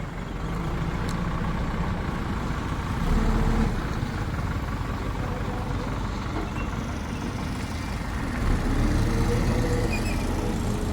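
Heavy machine's diesel engine running steadily, revving up briefly about three seconds in and again about eight seconds in, its pitch rising and falling.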